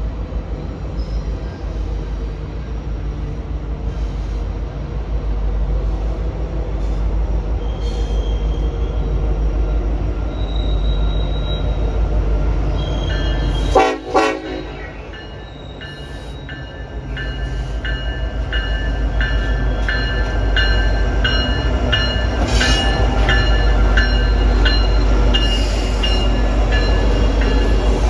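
Freight train led by CN diesel locomotives running with a steady low engine rumble. A sudden loud blast comes about halfway. Over the last third the horn sounds a chord of high steady tones, with a rhythmic wheel clatter under it.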